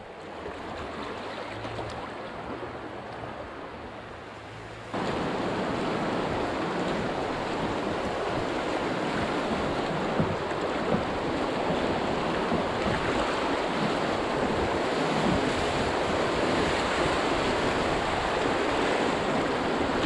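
Rushing water of a grade II river rapid, heard from an open canoe running it: a steady, even rush. About five seconds in it steps up abruptly to a louder, fuller rush that holds steady.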